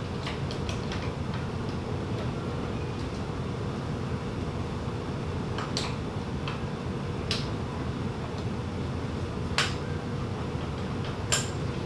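Hand tools working on a BMW N62 V8's camshaft sprockets and timing chain while the cams are turned into position for timing: a handful of sharp metallic clicks and taps, the loudest near the end, over a steady low hum.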